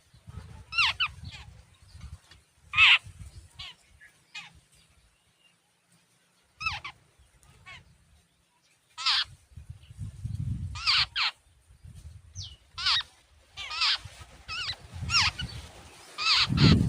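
Jungle babblers giving repeated short, harsh calls, often in twos or threes, every second or two. A low rumble comes and goes beneath the calls.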